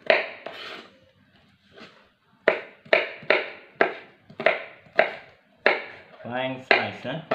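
Kitchen knife slicing bird's eye chilies on a cutting board: a sharp knock of the blade on the board with each cut, about two a second, with a pause of over a second near the start.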